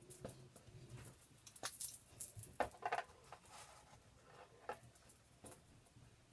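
Light, irregular taps, clicks and rustles of cardboard and paper being handled, busiest in the first three seconds.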